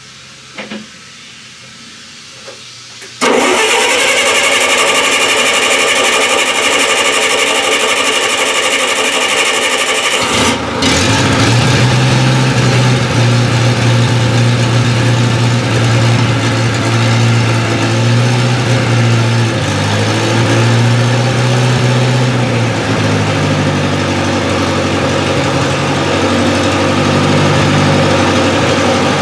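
Bobcat 610 skid steer's Wisconsin gas engine being cranked by its starter for about seven seconds, catching about ten seconds in, then running with its speed wandering up and down. This is a start after months of sitting.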